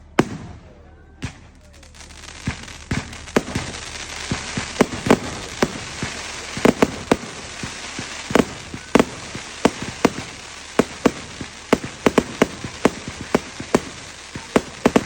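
Fireworks going off: many sharp bangs and pops at irregular intervals over a steady hiss.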